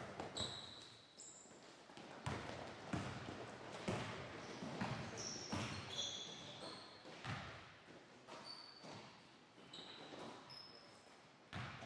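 Basketball dribbled and bounced on a hardwood gym floor, a string of sharp echoing thuds, with short high squeaks of sneakers on the wood scattered through the play.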